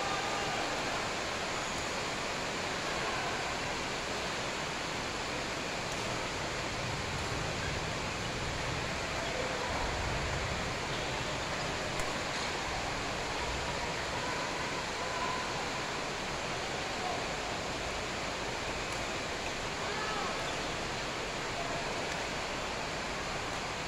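Steady hiss of a large indoor badminton hall with faint voices, and a sharp racket smack on the shuttlecock from a jump smash about halfway through.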